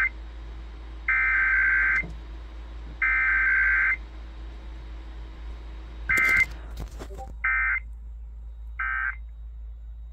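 Emergency Alert System SAME data bursts over radio: harsh warbling digital tones repeated in about one-second bursts. They are followed by three shorter bursts, the end-of-message code, with a short crackle around the first of them.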